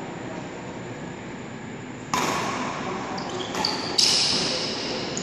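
Badminton rackets striking the shuttlecock in a rally: a sharp ping about two seconds in, then two more close together near four seconds, the last the loudest, each ringing on in a large echoing hall.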